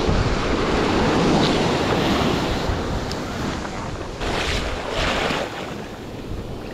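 Ocean surf breaking and foam washing up the beach in the shallows, with wind buffeting the microphone. Louder in the first half, with two short hissing rushes a little past the middle.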